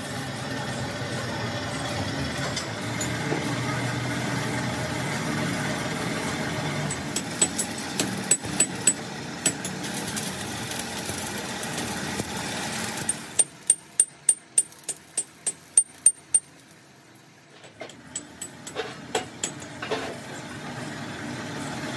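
Stick (arc) welding on a steel tractor front blade: a steady hiss with a low hum. About thirteen seconds in the welding stops, and a rapid run of sharp, ringing hammer strikes on the steel follows, about four a second for three seconds, then a few lighter taps near the end.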